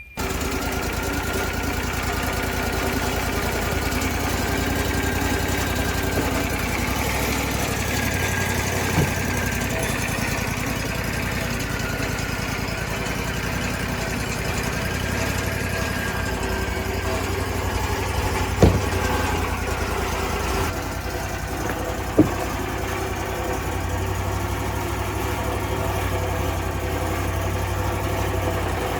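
Engine of a portable bandsaw sawmill running steadily, with a faint wavering higher whine above it and a few short sharp knocks. Past two-thirds of the way through, the higher part of the sound drops away a little.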